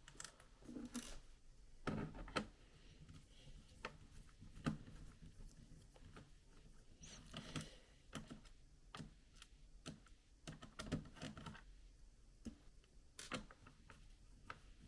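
Small screws being worked out of a laptop's plastic bottom case with a screwdriver and set down: faint, irregular clicks and ticks.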